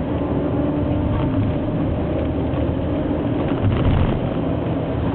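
Cabin noise inside a moving minibus: a steady engine and road rumble, swelling slightly about four seconds in.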